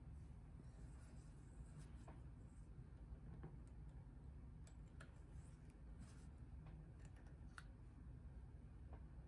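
Near silence with faint scattered clicks and light handling noises as thread is drawn by hand through a vintage Singer 503A sewing machine's guides and down toward the needle.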